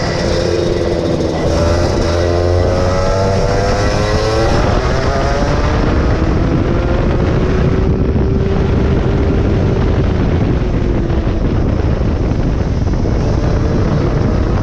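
23 hp go-kart engine pulling hard, its pitch climbing over the first four seconds or so, then holding and easing off, over a steady rush of noise.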